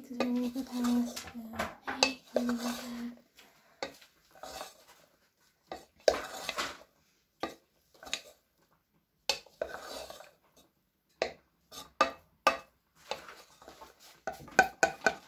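Wooden spoon stirring fusilli, ham and mushrooms in a non-stick saucepan, with irregular knocks and scrapes against the pan. A low held tone sounds in short notes during the first three seconds.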